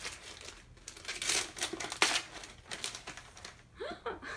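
Gift wrapping paper crinkling and tearing as a small taped package is unwrapped by hand, with a sharp snap about two seconds in.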